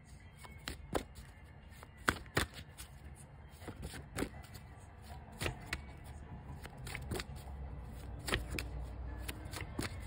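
A tarot deck being shuffled by hand: cards slipping and slapping together in irregular soft clicks.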